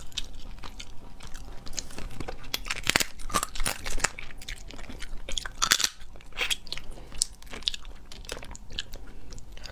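Close-miked eating of cooked crab: crunching of the shell and wet chewing, a run of sharp cracks with the loudest about three seconds in and again near six seconds.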